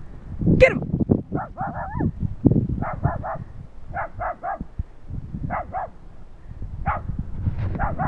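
Chihuahua barking while herding cattle: short, high yaps, mostly in quick runs of two or three, repeated over and over.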